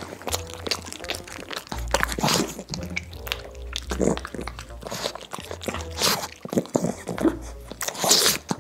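Dogs chewing and crunching food close to sensitive microphones: irregular crisp crunches and wet mouth smacks.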